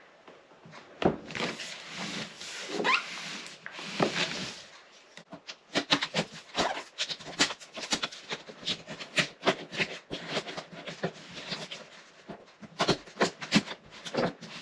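Cardboard packaging being handled and opened: a few seconds of scraping and rubbing, then a long run of quick crackles, clicks and knocks.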